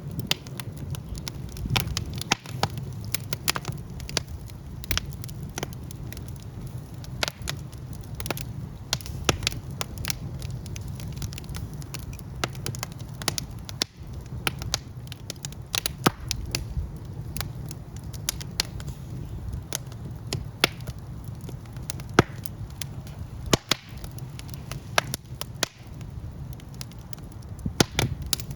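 Wood fire burning in a fireplace, with a steady low rumble under frequent, irregular sharp crackles and pops.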